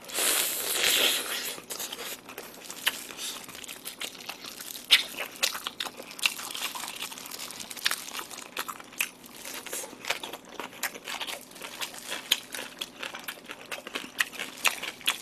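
Close-up eating: biting and chewing pork off a gamjatang pork bone, louder in the first second or two, with frequent crinkles and clicks from thin disposable plastic gloves handling the food and bowl.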